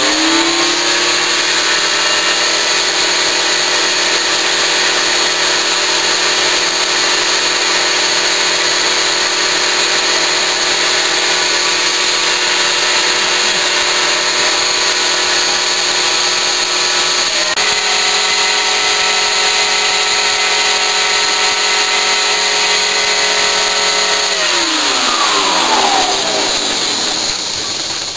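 Standard household vacuum cleaner, serving as the suction source of a homemade vacuum former, switched on and whining up to speed, then running steadily while it draws the heated plastic sheet down onto the platen. Its pitch shifts slightly about seventeen seconds in. Near the end it is switched off and winds down with a falling whine.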